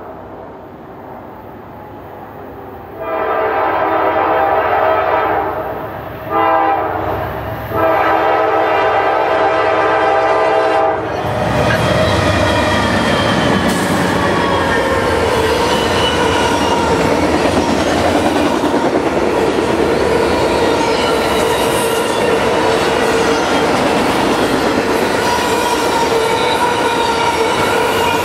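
Norfolk Southern GE Dash 9-44CW freight locomotive sounding a Nathan K5LA horn for a grade crossing: a long blast, a short one and another long one. From about 11 seconds in, the locomotives and autorack cars roll past, with steel wheels clacking and squealing on the rails.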